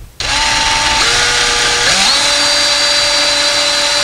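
DeWalt cordless drill boring a pilot hole into window molding for a blind bracket. The drill starts about a quarter second in and runs steadily, its whine shifting in pitch twice.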